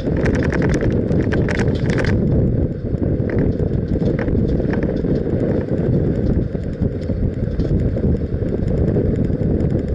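Wind buffeting the microphone of a roof-mounted camera on a moving vehicle, a loud steady rumble. A quick clicking rattle runs through the first two seconds, with scattered fainter clicks after.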